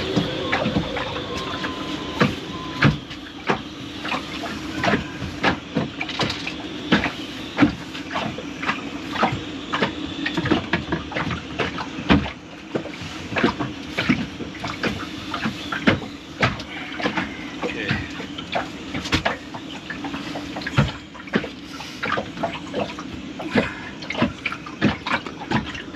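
Irregular clicks and knocks of small metal parts being handled while a manual bilge pump's handle and pin are fitted, over a steady watery wash.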